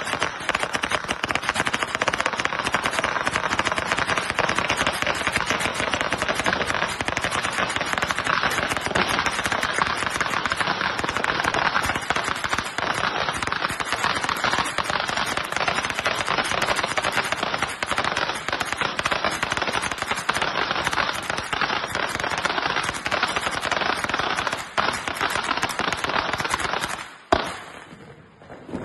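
A long string of firecrackers going off in a rapid, continuous crackle of bangs. About a second before the end it cuts off suddenly with one sharper crack, followed by a much quieter stretch.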